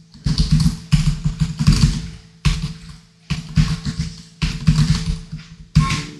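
Computer keyboard typing in quick runs of keystrokes separated by short pauses.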